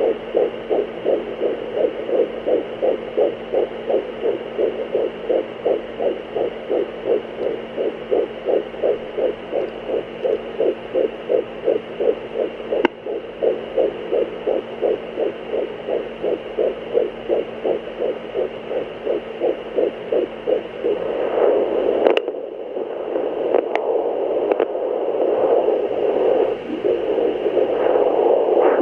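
Fetal heartbeat through a handheld fetal Doppler's speaker: fast, even whooshing beats, more than two a second, over a faint steady hum. After about 21 seconds the beat is lost in louder, irregular whooshing with a few clicks.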